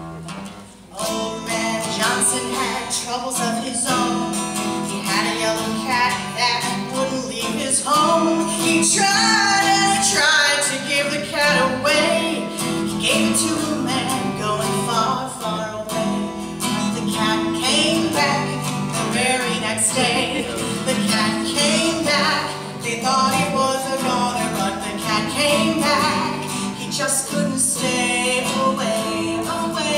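A woman singing a comic folk song to guitar accompaniment.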